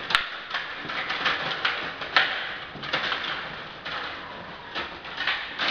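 Stiga Play Off table hockey game in play: irregular clacks and knocks of the plastic players, control rods and puck, with a few sharper knocks standing out.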